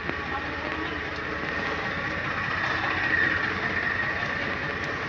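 John Deere 5310 tractor's three-cylinder diesel engine idling steadily, getting a little louder around the middle.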